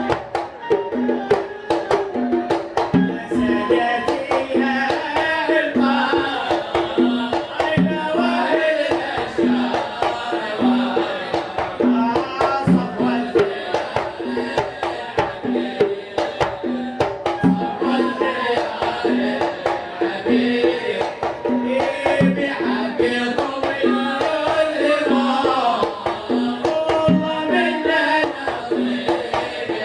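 Devotional song in the Kuwaiti sawt style: voices singing a melody over a steady, repeating pattern of hand-drum strokes.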